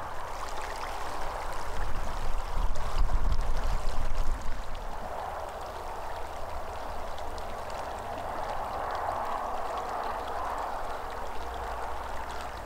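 River water flowing and rippling over a shallow bed, a steady rushing babble. A louder low rumble comes in about two seconds in and fades a couple of seconds later.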